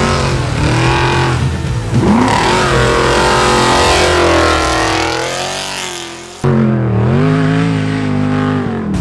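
Off-road racing cars' engines revving hard as they pass at speed, the pitch swinging down and up with gear changes and throttle. About six and a half seconds in the sound cuts abruptly to another car's engine, duller in tone.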